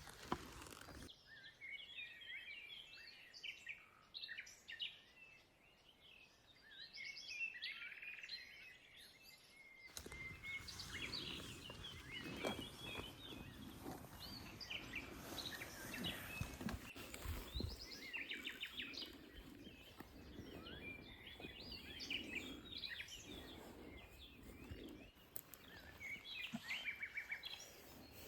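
Small birds chirping and twittering in woodland: many short, high calls overlapping throughout. The background hiss drops out abruptly about a second in and returns around ten seconds in.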